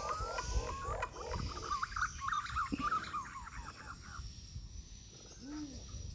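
Wild birds calling in the trees: a rapid run of short, high chirps with a rising whistle for the first four seconds, then a single low rising-and-falling call about five and a half seconds in, over a low rumble.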